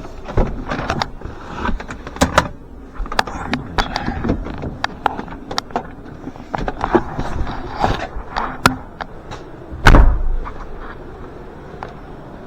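Clicks, knocks and rattles of hands working in and around a car, then a heavy thump about ten seconds in: a car door shutting.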